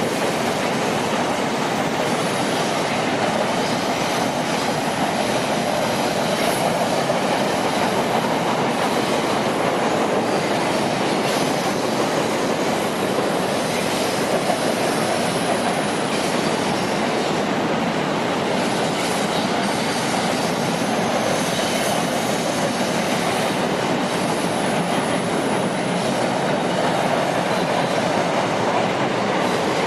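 CSX train cars rolling steadily past on the rails, a continuous loud rumble and rattle of wheels on track, with a faint high-pitched wheel squeal now and then.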